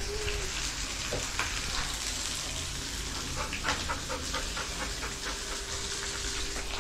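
Food frying in oil in a pan on a gas stove: a steady sizzle, with a cluster of sharp crackles and pops a few seconds in.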